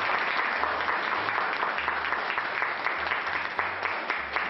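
Audience applauding, a dense patter of many hands clapping that grows fainter near the end.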